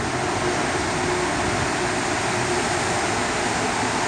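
Steady hum of the ventilation and onboard equipment of an Azur metro car standing at a station with its doors open.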